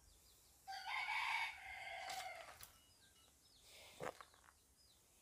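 A rooster crows once, about two seconds long. A single sharp knock follows a couple of seconds later.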